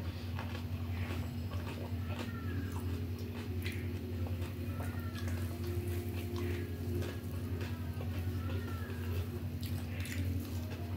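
Hands mixing rice and dal on a steel plate, with chewing: small clicks and squishes over a steady low hum. A few short high calls from an animal come through, each rising and falling.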